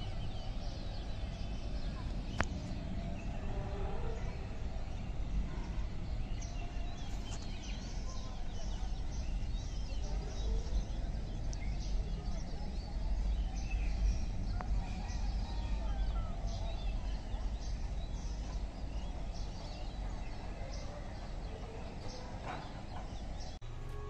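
Outdoor city ambience: many birds chirping and calling over a steady low rumble.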